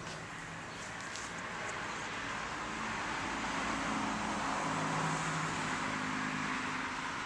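A road vehicle going past, its tyre and engine noise swelling to a peak about two-thirds of the way through and then easing off.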